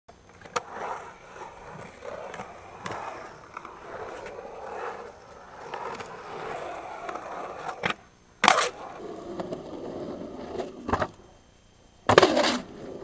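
Skateboard wheels rolling and carving on a concrete bowl, broken by several sharp clacks of the board. The loudest clack comes about 8.5 s in, and a harsher, louder burst of clatter comes near the end.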